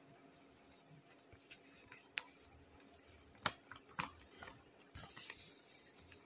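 Faint handling of a printed paper booklet as its pages are turned: a few sharp clicks and crinkles in the middle, then a brief rustle of paper near the end.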